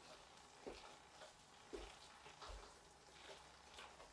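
Faint stirring of a shredded hash brown casserole mixture with a spoon in a large stainless steel bowl: a string of soft, wet squelches and scrapes about every half second.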